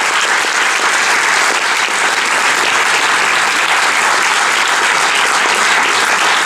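Audience applauding, a dense, steady clapping that holds throughout.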